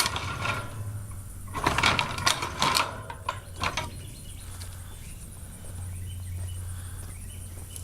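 A run of sharp metallic clanks and rattles over the first few seconds, loudest about two to three seconds in, followed by a steady low hum that sets in about six seconds in.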